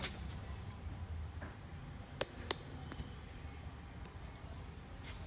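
Low steady hum with a sharp click at the start and two sharp clicks about two seconds in, a third of a second apart.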